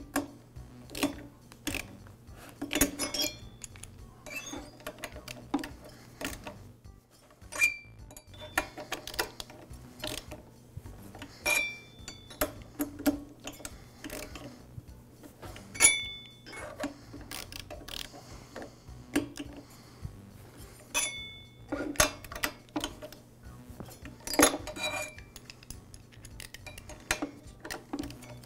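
A long screwdriver clicks and clinks irregularly against the screw heads and the metal engine cylinder as the cylinder's mounting screws are tightened down. A few short, high metallic pings ring out along the way.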